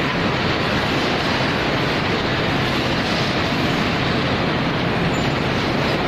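Uroko rotary veneer lathe running as it peels a log into veneer: a loud, steady, dense machine noise with no breaks.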